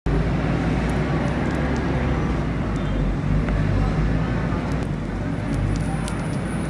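Sugar glider chewing on an insect, with small sharp crunching clicks, most of them in the last couple of seconds, over a steady low rumble.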